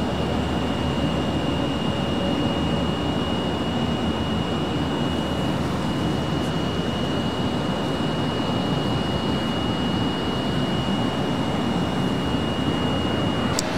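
Jet engines of a taxiing airliner at idle: a steady low rumble with a thin high whine over it, the whine cutting off abruptly near the end.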